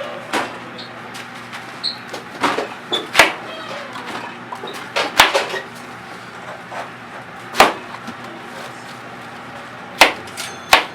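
Kitchen clatter: about six sharp knocks and bangs at irregular intervals a second or more apart, like cookware, doors or drawers being handled, over a steady hum.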